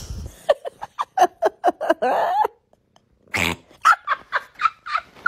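A domestic cat makes two runs of short, repeated vocal calls, about four a second. The second run, after a brief noisy burst, is higher-pitched than the first.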